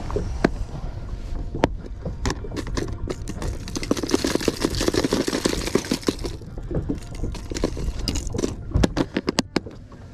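Hard plastic crankbaits clattering and scraping against one another as a hand rummages through a clear plastic tackle box, with a denser stretch of rattling in the middle and a few sharp clicks near the end.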